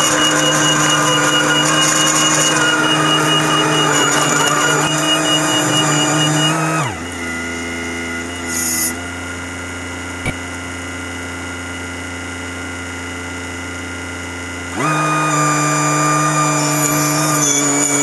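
Volvo EC15B mini excavator's diesel engine running at working revs with a steady high whine, dropping to idle about seven seconds in and revving back up near fifteen seconds. A brief hiss and a single click come during the idle.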